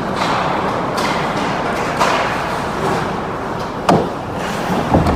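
Ice hockey play: a steady hiss of skates on the ice and rink noise, broken by sharp clacks of sticks and puck about one, two and four seconds in and a quick pair near the end, the last ones the loudest.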